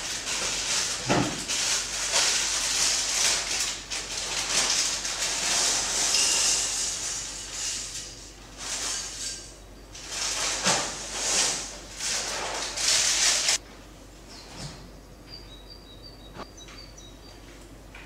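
Nestling songbirds in a wooden nest box giving hissing begging calls in irregular bursts, which stop abruptly about three-quarters of the way through. A few faint, short, high chirps follow.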